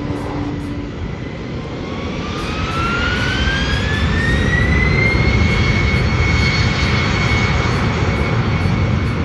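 Twin turbofan engines of a J-AIR Embraer jet spooling up for takeoff. A whine rises in pitch for about three seconds, then holds steady at takeoff power over a low rumble as the aircraft starts its roll.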